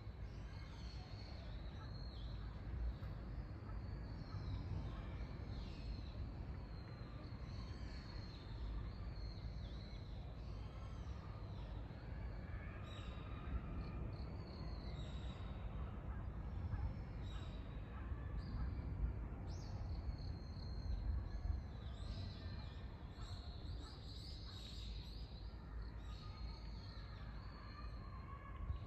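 Several small birds chirping and calling, many short overlapping chirps throughout, over a steady low background rumble.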